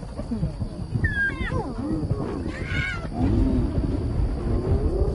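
A male lion and spotted hyenas clash over a kill: deep, continuous growling and snarling, with the hyenas' yelps and high, rising calls breaking in over it twice.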